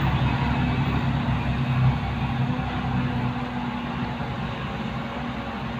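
Diesel dump truck engine idling steadily with a low hum, fading slightly over the few seconds.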